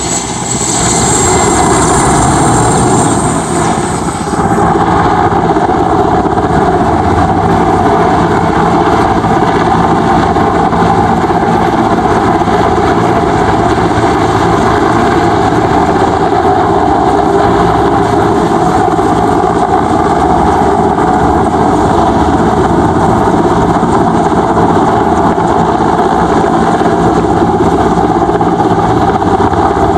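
Mil Mi-8-family military helicopter's twin turbines and main rotor running loudly and steadily as it flies low and then hovers. A high turbine whine fades out over the first few seconds.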